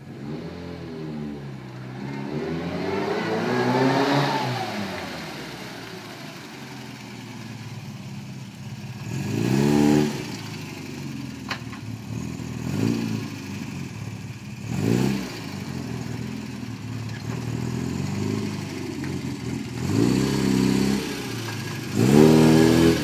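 Classic Mini Cooper's BMC A-series four-cylinder engine being driven: it pulls up in revs for about four seconds and falls away, then runs steadily with short bursts of revs several times and a longer rev near the end.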